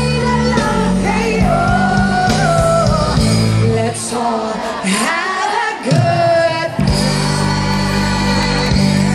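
Live concert music over a loud PA: a female singer's voice holding and bending melodic lines over a band with a steady bass.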